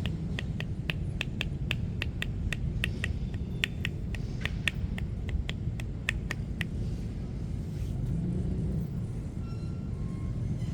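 Rhythmic percussive massage strikes, hands slapping on the body at about three a second, which stop about two-thirds of the way through. A steady low rumble of street traffic runs underneath.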